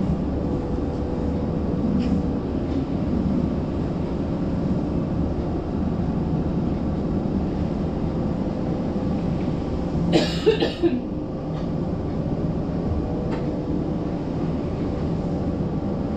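Toronto streetcar running with a steady low rumble and a faint steady hum. About ten seconds in, a person gives a short cough.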